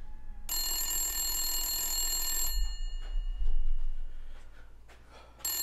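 Corded landline telephone ringing: one ring of about two seconds, with the next ring starting near the end.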